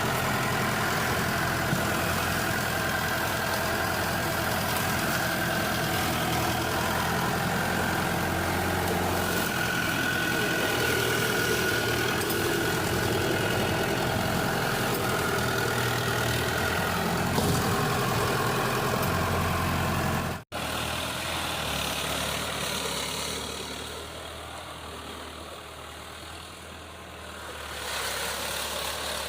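Tractor engine running steadily while it ploughs a flooded field on cage wheels. About twenty seconds in the sound breaks off abruptly, then resumes and is quieter for a few seconds.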